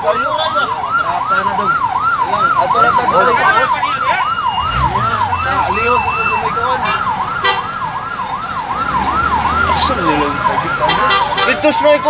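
Fire truck's electronic siren in yelp mode, sweeping rapidly up and down about three times a second, until it fades out about ten seconds in.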